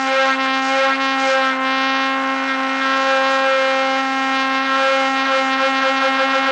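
DJI Air 2S quadcopter's motors and propellers whining steadily at a constant pitch, with a slight wavering in the tone, heard close up from a camera strapped to the drone.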